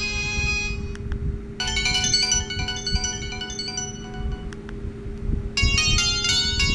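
Samsung GT-E1195 mobile phone ringtones, short electronic melodies: one tune ends about a second in, a new one starts after a brief gap, and a third begins near the end. A steady low hum runs underneath.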